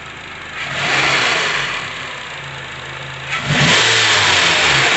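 Honda CR-V's 2.4-litre four-cylinder engine revved twice by hand: one rise that falls back, then a longer, louder rev. The knock it used to make is gone, which the mechanic puts down to the new serpentine belt replacing a stretched, worn one.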